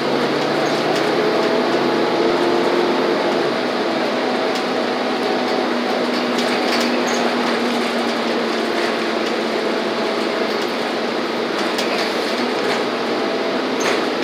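Steady cabin noise of a city transit bus under way on a highway: engine, tyre and road noise with a faint whine and a few light rattles.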